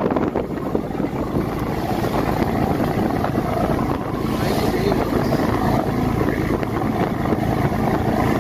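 A boat's engine running steadily while under way, with wind blowing across the microphone.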